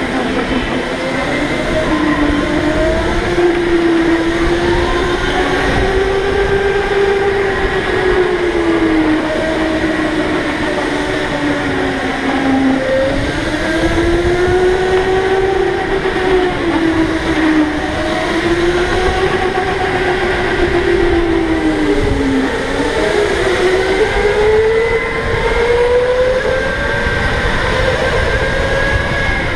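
Electric go-kart's motor whining, its pitch rising and falling again and again as the kart speeds up and slows for corners, over a steady low rumble from the kart on the concrete track.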